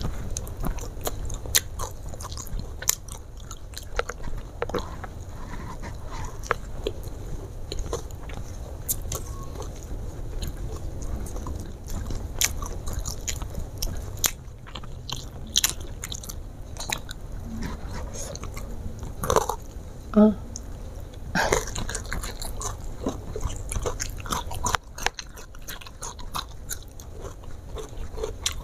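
Close-up chewing and biting of crispy garlic fried chicken and rice, with many short, sharp crunches.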